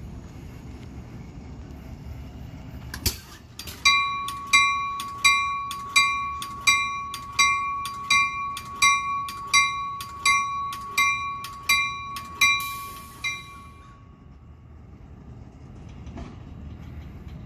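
Departing Amtrak Pacific Surfliner train's warning bell ringing, about fourteen even strikes at roughly three every two seconds, stopping about thirteen seconds in. A single sharp clank comes just before the bell starts, over the train's low rumble.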